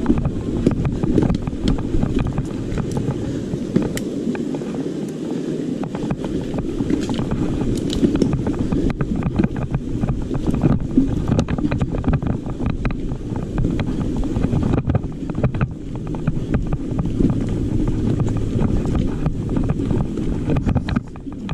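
Mountain bike being ridden over rough, rutted trail: steady wind buffeting on the microphone, with frequent small rattles and knocks from the bike over the bumps.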